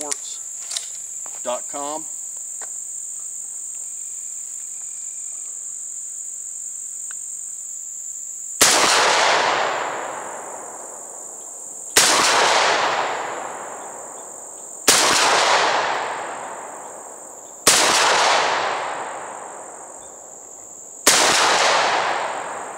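Five shots from a Derya MK-10 semi-automatic 12-gauge shotgun firing high-pressure Winchester slugs, the first about nine seconds in and the rest roughly three seconds apart. Each is a sharp bang followed by a long echo that fades over about two seconds.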